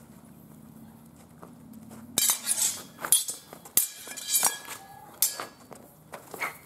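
Sword-and-buckler sparring exchange: swords clashing against each other and against the bucklers in a rapid string of sharp metallic clanks and clinks, some with a brief ring, starting about two seconds in.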